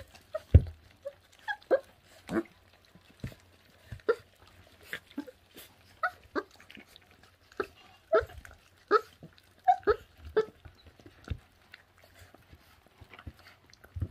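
Two 24-day-old puppies tearing and chewing at a piece of raw meat: short grunts and little whimpers at irregular intervals, about one a second, mixed with brief clicks and knocks from their chewing and tugging.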